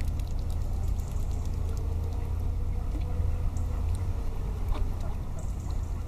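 Mute swans feeding in shallow water, with light splashing and small scattered clicks as they dip and dabble their bills, over a steady low rumble.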